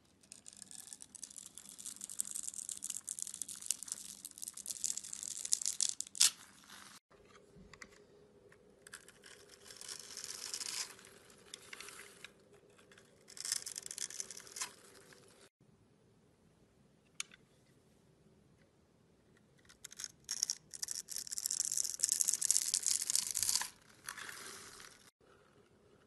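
Knife blades shaving, scoring and scraping into bars of soap: runs of crisp, dry scraping and crumbling with a few sharp clicks, several of them stopping abruptly.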